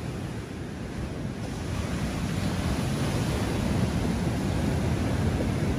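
Sea surf breaking and washing on a stony beach, a steady rushing that grows a little louder about a second and a half in, with wind buffeting the microphone.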